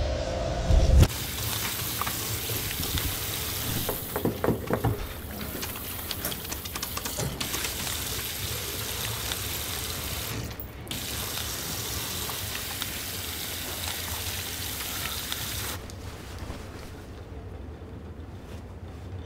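Wall-mounted push-button warm-air hand dryer switched on with a knock about a second in, then blowing steadily before it cuts off near the end.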